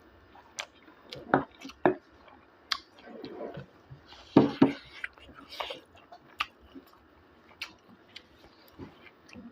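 A person eating pork with bamboo shoot close to the microphone: chewing and mouth smacks, with scattered sharp clicks and a few louder short bursts a little under halfway through.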